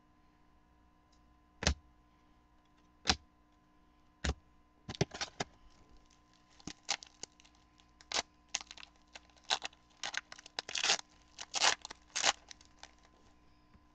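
Trading-card packs and cards being handled: a few separate sharp clicks in the first four seconds, then a long run of quick crackling and rustling of foil pack wrappers and card stock as packs are opened and cards flipped through.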